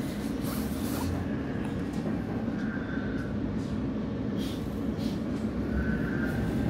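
Oslo Metro train heard from inside the carriage as it pulls out of a station: a steady low rumble of wheels and running gear on the track, growing a little louder toward the end as it picks up speed. A faint high tone rises over the rumble twice.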